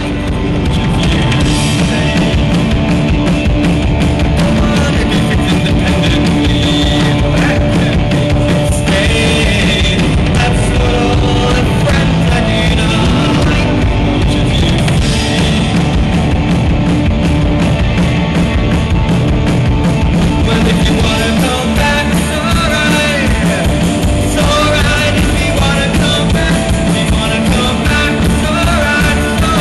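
Rock music, loud and steady, starting right at the beginning.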